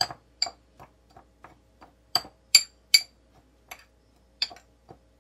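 Metal spoon clinking and scraping against a small white ceramic dish while dry spice powders are stirred together: a run of light, irregular clinks, about two or three a second, loudest around the middle.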